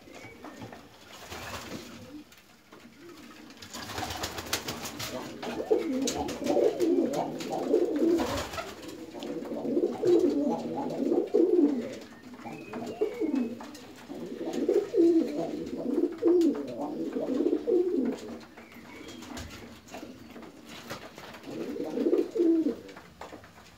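Domestic pigeons cooing, several birds overlapping in bouts of a few seconds each, starting about four seconds in.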